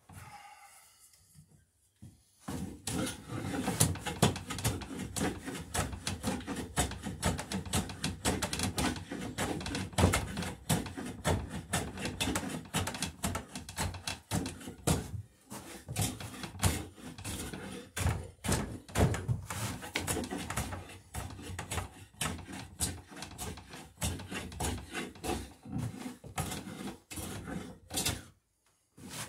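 Hand plane taking shavings off an oak knee clamped in a vise, stroke after stroke with the grain. The planing starts about two seconds in and pauses briefly a few times.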